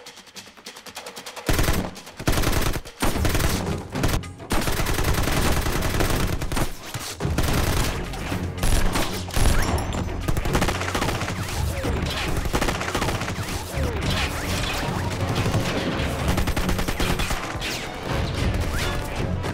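Rapid automatic gunfire in a staged shootout. It starts about a second and a half in, comes in broken bursts at first, then runs almost without pause from about four and a half seconds in.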